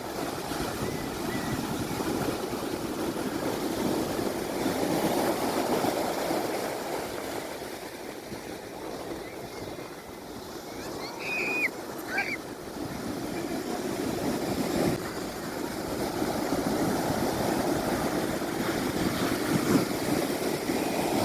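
Sea waves washing onto the shore, swelling and falling back every few seconds. A couple of brief high calls are heard about halfway through.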